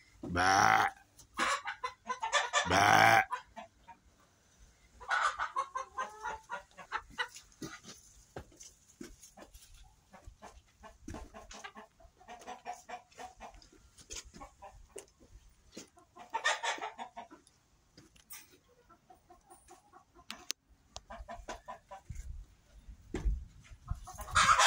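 Farmyard animal calls: chickens clucking, with loud drawn-out calls from the animals, two close together in the first three seconds and another near the end.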